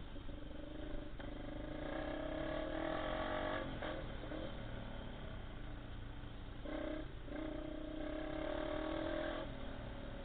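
Honda XR250 Tornado trail motorcycle's single-cylinder engine pulling under throttle twice, easing off in between, heard from an onboard camera.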